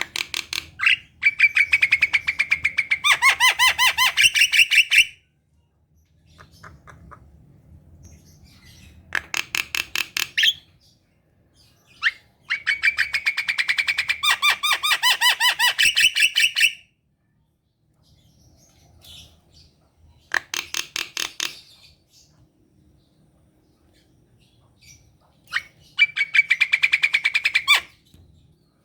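Javan myna (jalak kebo) singing a full, vigorous 'gacor' song: loud bouts of rapid rattling, chattering notes mixed with whistled tones. Five bouts, each one to four seconds long, separated by short pauses.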